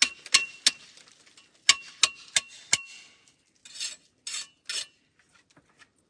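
Steel mason's trowel striking fieldstone with seven sharp, ringing clinks, three then four, as stones are tapped into mortar, then three short rasping scrapes of the trowel through mortar.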